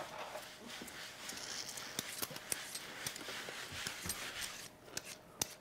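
Kitchen prep noises: scattered light clicks and taps of knives, potatoes and utensils on a cutting board and counter, over a soft scraping, rustling haze.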